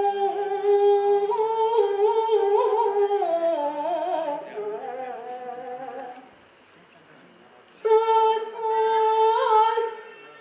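Chinese opera singing by a solo woman's voice: long held notes that waver and slide downward. The singing stops for about two seconds past the middle, then resumes with a new held note.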